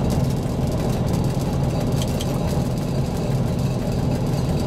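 SU45 diesel locomotive's V12 engine running steadily, heard from inside the cab as the train moves along the track.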